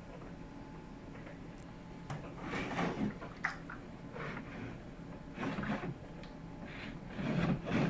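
LG RC91V9AV3Q heat-pump tumble dryer running, its compressor and fan giving a steady low hum with a faint thin tone. From about two seconds in, the load tumbling in the drum adds irregular swishes and soft thumps, the loudest near the end.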